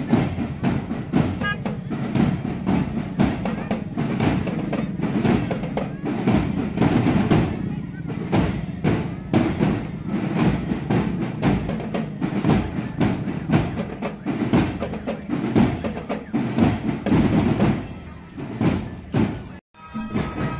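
Drum-led music with a steady, driving beat of snare and bass drum strikes, with voices mixed in. It cuts out abruptly near the end.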